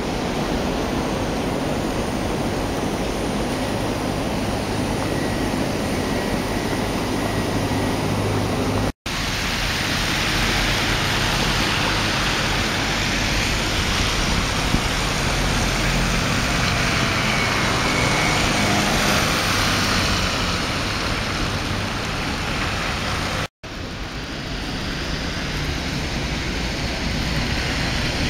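Steady city traffic noise on a snow-covered street, vehicles running and passing. The sound drops out abruptly twice where the recording is cut.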